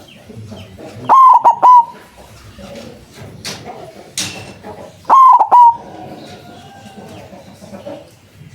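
White zebra dove (perkutut) cooing: two loud phrases of a few quick stuttered coo notes, about four seconds apart.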